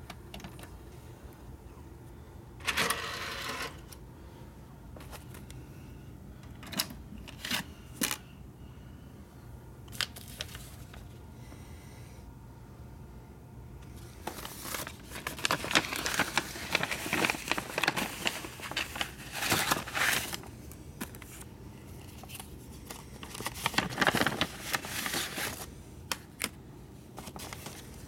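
Handling noise: irregular rustling and scraping with scattered sharp clicks, heaviest in two longer stretches in the second half, over a low steady hum.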